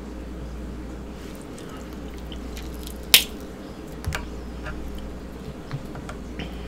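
Whole boiled shrimp in sauce being peeled by hand: wet squishing and shell cracking, with one sharp snap about three seconds in, a smaller one a second later, and a few light clicks after.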